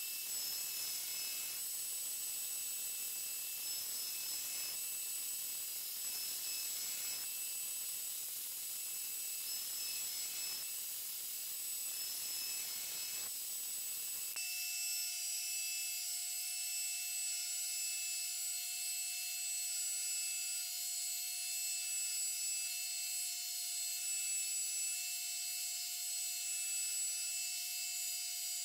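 Belt grinder running with a steady whine and hiss, while a 52100 carbon steel knife blade is ground against the abrasive belt in repeated passes. About halfway the grinding sound stops and only the machine's steady whine is left.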